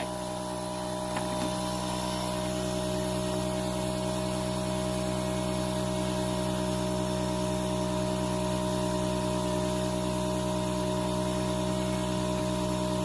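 Steady motor hum at a constant pitch, a machine running without change.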